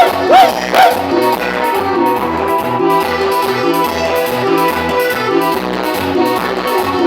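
Band music with a steady bass beat. A lead part plays a few quick rising-and-falling runs in the first second, then the band's accompaniment carries on.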